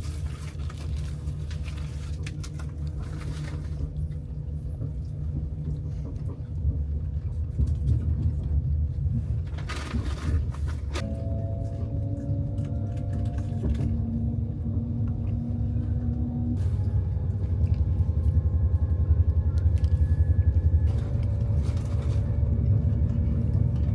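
Low, steady rumble of a vehicle on the move, with faint humming tones that come in about halfway and shift in pitch a couple of times.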